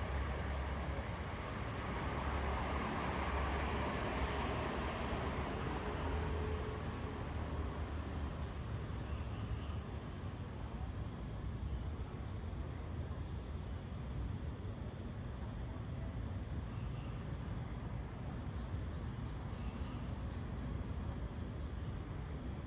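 Insects trilling without a break in a high, finely pulsing tone, over a steady low street hum. A broader low rumble swells over the first few seconds and then fades.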